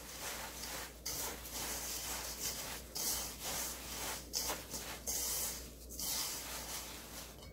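Coarse raw cane sugar crunching and scraping against a stainless steel bowl as a gloved hand tosses fruit chunks through it, a gritty rubbing sound in repeated uneven strokes.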